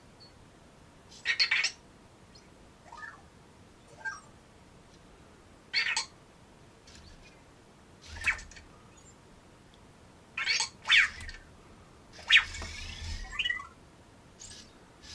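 Anki Vector robot waking up: a string of short electronic chirps, squeaks and warbling glides every second or two, mixed with brief motor whirs as it rolls off its charger.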